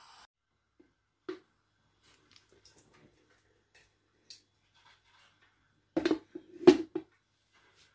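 A few faint, scattered clicks and taps of hands handling things, with one sharper tick about a second in and a louder cluster of short knocks and taps about six to seven seconds in.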